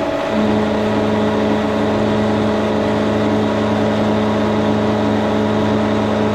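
1942 Brown & Sharpe No. 2 Plain milling machine running with a steady, multi-toned mechanical hum. A lower hum drops out for a moment near the start, then carries on.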